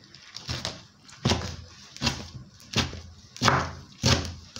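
Kitchen knife chopping washed bitter leaf on a wooden chopping board: a steady run of sharp chops, each with a dull thud of the blade hitting the board, about three strokes every two seconds.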